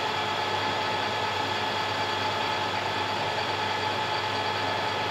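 Warco WM180 mini lathe running at a steady speed with the turning tool at the end of the hammer handle, turning a small step: a steady machine hum with several held tones over a faint hiss.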